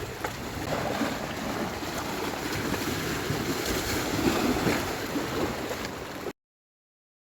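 Sea waves washing on the shore, with wind buffeting the microphone. The sound cuts off abruptly about six seconds in.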